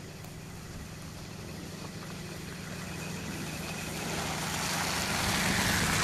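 A car driving slowly along a snow-covered street, its engine a low steady hum, getting louder as it comes close; in the last two seconds the hiss of its tyres through the snow swells as it passes.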